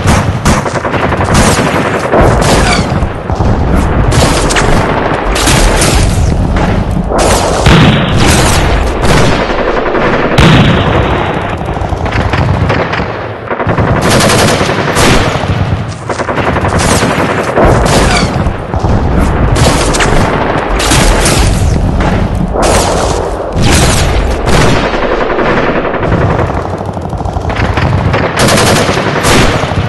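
Heavy gunfire from rifles, many shots in quick succession with hardly a pause.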